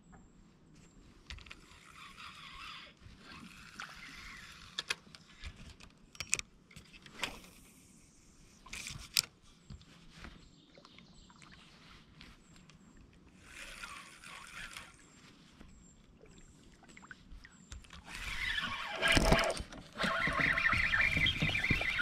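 Sounds of a kayak on the water: short patches of splashing water and scattered clicks and knocks against the hull. A louder, steady rushing noise sets in near the end.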